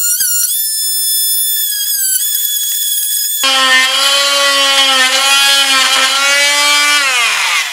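Oscillating multi-tool cutting a scarf into a wooden boat's hull plank. A high whine wavers in pitch, then at about three and a half seconds it drops suddenly to a louder, lower buzz with rich overtones. Near the end it falls in pitch as the tool slows.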